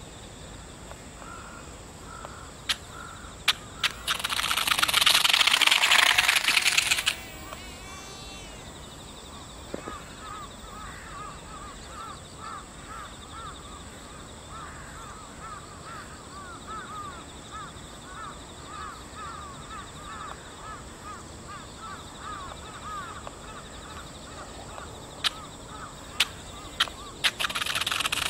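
Twin electric motors and propellers of a small foam RC airplane whirring loudly for about three seconds, a few seconds in, as it passes close. A bird then calls over and over. Near the end there are a few sharp clicks, and the motors whir loudly again as the plane rolls on the asphalt.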